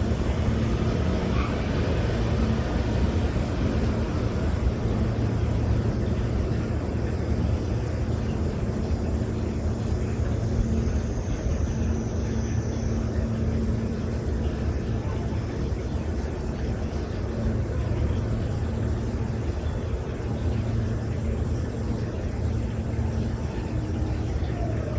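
Neighborhood street ambience: a steady low rumble of vehicle engine noise, with a faint hum that comes and goes.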